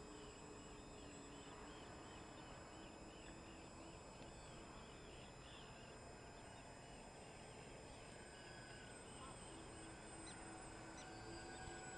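Near silence: the faint distant hum of a radio-controlled flying boat's brushless electric motors, fading in and out as it flies, with small rapid bird chirps throughout.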